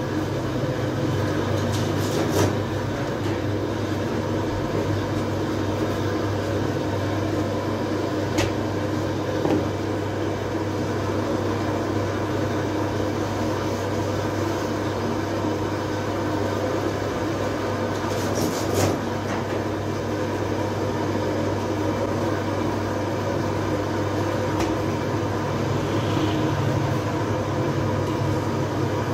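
Steady low hum of bakery machinery running, with a few brief knocks and clatters of work.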